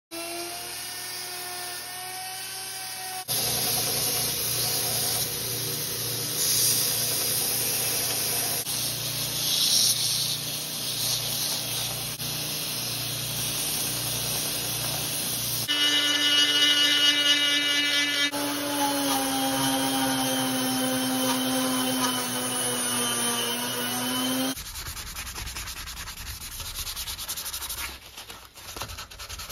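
Wooden knife handle pressed against a stationary belt sander: a motor whine with the wood grating on the moving belt, in several cut-together passes. Near the end, a hand file or rasp scrapes back and forth across the wooden handle.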